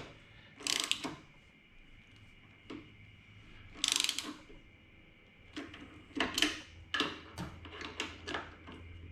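Hand ratchet wrench clicking in several short bursts of strokes while tightening the bolts of motorcycle handlebar risers.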